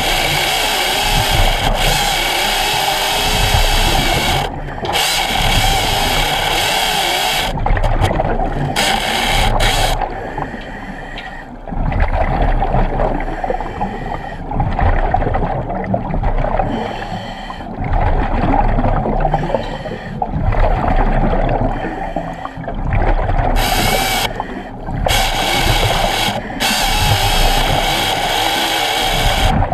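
Hydraulic chainsaw running underwater on a hydraulic supply of about 4 gallons per minute, with a steady whine and a harsh hiss as it cuts into submerged timber. The cutting hiss drops out for about twelve seconds in the middle while the whine carries on, then returns near the end.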